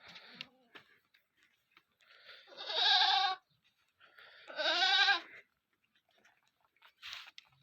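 Sirohi goat bleating twice, each call about a second long with a wavering pitch.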